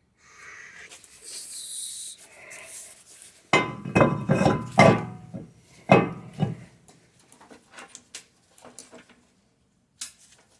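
Metal parts and tools clanking and knocking: a short hiss at first, then a handful of loud knocks with some ringing in the middle, and a few light ticks after.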